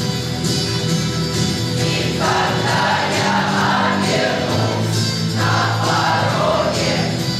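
Youth choir singing a song in sustained, held notes.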